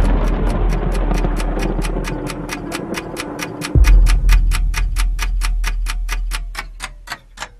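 Sound-effect clock ticking, fast and regular and slowing slightly toward the end, over a deep rumbling boom that hits just before the start and again about four seconds in, then fades away near the end.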